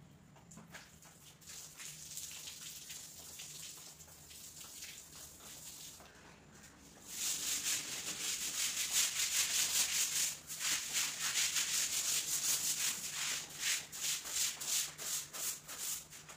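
A stiff stick broom scrubbing a wet floor in quick repeated strokes, faint at first and much louder from about seven seconds in.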